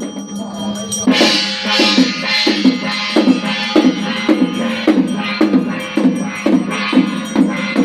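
Percussion music led by drums. About a second in, a steady beat of roughly three strikes a second begins, with a bright metallic shimmer over a held low tone.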